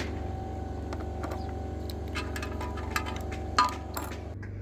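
Metal wrench clicking against a 10mm bolt as it is tightened, a scatter of sharp ticks with a louder click near the end, over a steady low hum.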